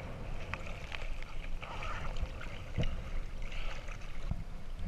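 River water lapping and splashing against a camera held at the water line, with a low rumbling wash and scattered small splashes and clicks.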